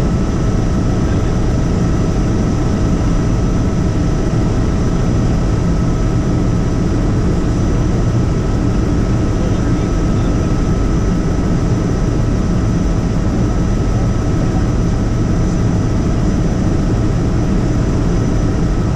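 Helicopter in flight, heard from inside the cabin: a loud, steady rotor and engine drone with a constant high whine over it.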